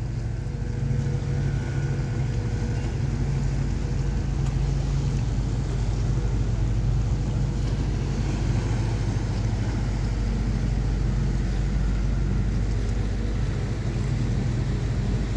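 Steady low drone of a large ship's engines, with a few faint steady tones above it.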